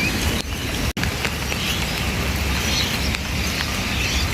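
Rain mixed with hail pattering down on the ground and surfaces: a steady hiss with scattered ticks. The sound cuts out for an instant about a second in.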